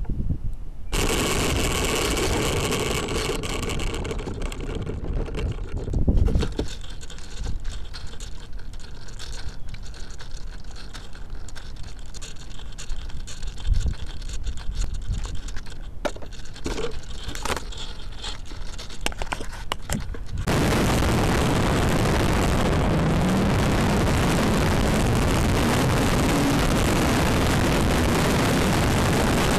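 Electric motor and propeller of a radio-controlled airplane, heard through a camera strapped to the plane: the motor starts whirring about a second in while the plane is on asphalt, with a loud bump a few seconds later. About two-thirds of the way through, the sound switches abruptly to a loud, steady rush of wind over the onboard microphone in flight.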